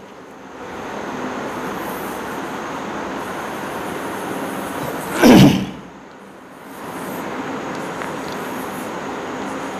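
Chalk scraping steadily across a blackboard as lines are drawn, pausing twice when the chalk is lifted. A short, louder sound of about half a second cuts in about five seconds in.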